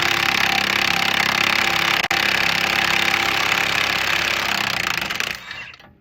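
Impact wrench hammering on the track bar bolt's nut in rapid, steady bursts, with a momentary break about two seconds in, and stopping near the end.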